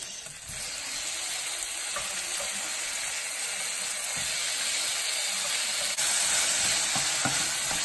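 Sliced kielbasa, onion and garlic sizzling in hot oil in a stainless steel skillet as chopped tomatoes are dropped in by hand. The steady sizzle grows louder, stepping up about six seconds in, with a few light clicks.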